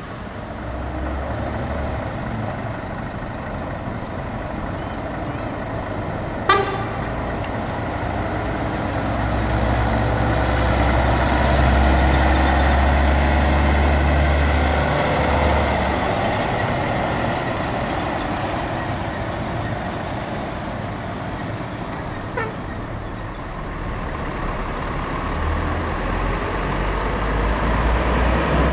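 Heavy diesel trucks with drawbar trailers driving slowly past. The engine rumble swells as one passes close, about ten to fifteen seconds in. A single sharp click comes about six and a half seconds in.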